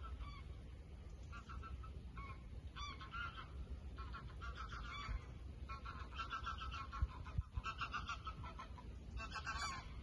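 Geese honking repeatedly, several short calls in quick clusters that grow busier in the second half.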